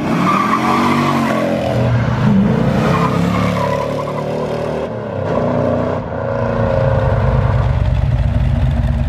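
A car engine revving, its pitch rising and falling several times, then settling into a loud, low, rumbling burble near the end.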